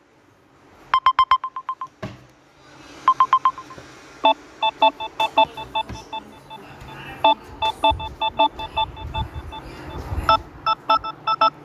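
Samsung smartphone ringtone and notification sounds played through the phone's speaker: a quick run of short electronic beeps, a brief second burst, then a ringtone of short bright notes in a repeating pattern that moves to higher notes near the end.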